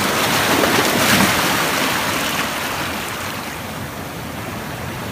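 Sea waves breaking and washing over a rocky shore, loudest about a second in and then easing off as the water draws back.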